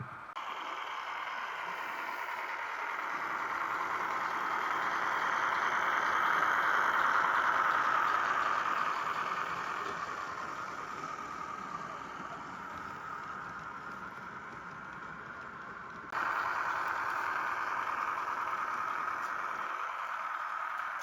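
Model diesel shunter (Bachmann Mavis) running on track, its wheels, motor and sound-decoder engine noise mixing into a steady whirring rattle. The sound grows louder as it comes close and fades as it moves away, then jumps up again at a cut about 16 seconds in.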